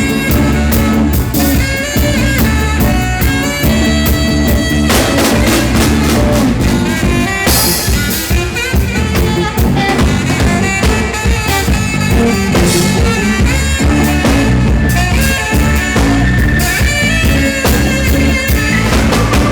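Live band playing an instrumental passage: a drum kit keeping a steady beat under a melodic lead line, with no vocals.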